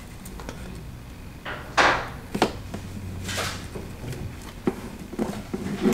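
Hands pressing a taped-on side molding against a car door panel: a few short rustling scrapes and sharp clicks over a steady low hum.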